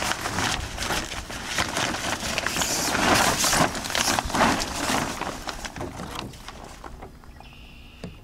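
Stiff sailcloth rustling and crinkling as hands grip the sail and work a batten into its pocket, dying down after about six seconds.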